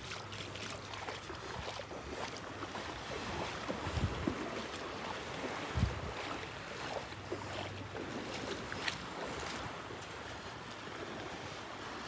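Small Gulf of Mexico waves washing on the beach, with light wind on the microphone and two low thumps about four and six seconds in.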